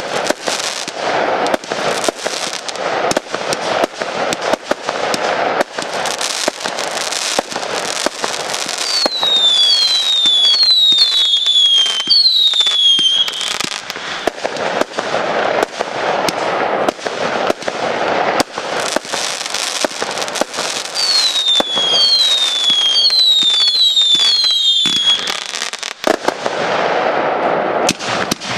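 Fireworks display: a dense run of bangs and crackling, with two volleys of five shrill whistles, each falling in pitch, about a third of the way in and again near three quarters of the way.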